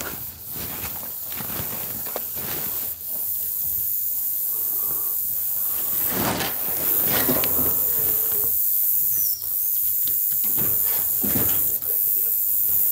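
Footsteps crunching and rustling through dry leaves, twigs and brush on rocky ground, with irregular scrapes and knocks as a person pushes in under the low, loose corrugated-metal sheets of a shack.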